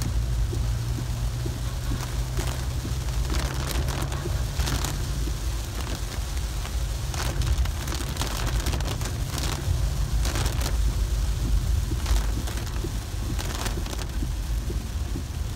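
Car cabin noise while driving through heavy rain: a steady low rumble of engine and tyres on the wet road under the hiss of rain, broken about once a second by swishes of the windscreen wipers.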